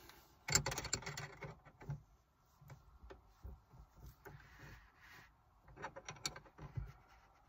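Faint clicking and rattling of an Acuity insulated shift knob being twisted onto a manual Honda Civic's shift lever and lined up, with a busier run of clicks about half a second in and a few sharper clicks near six seconds.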